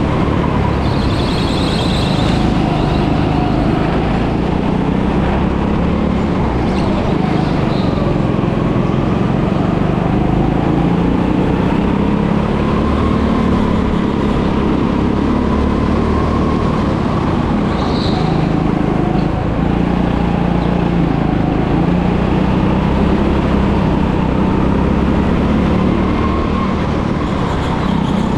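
Go-kart engine running continuously on the track, its pitch slowly rising and falling as it speeds up and slows down, with heavy low rumble throughout.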